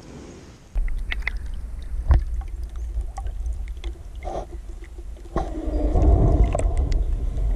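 Water lapping and gurgling around a camera held at the waterline against a kayak's hull, over a steady low rumble, with a few sharp knocks. The sloshing grows louder about five and a half seconds in.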